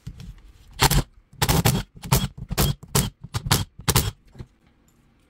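Milwaukee cordless impact driver hammering on the 8 mm bolts of an A/C compressor housing in about nine short bursts over three seconds, backing the bolts out.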